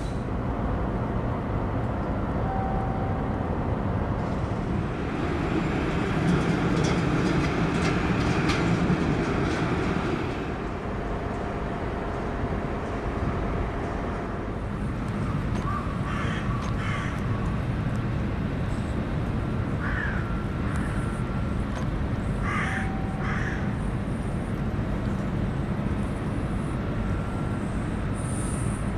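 Crows cawing several times, in short calls mostly in pairs, over a steady low outdoor rumble. A passing vehicle swells the rumble for a few seconds early on.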